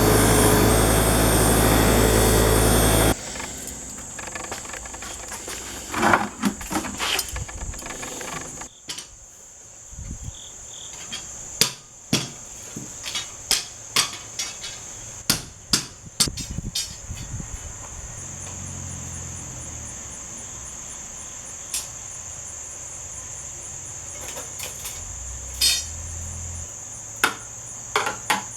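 A power tool cutting into an air conditioner being scrapped for copper, stopping suddenly about three seconds in. It is followed by scattered knocks and taps of hand tools on metal, with a steady high-pitched chirr of crickets underneath.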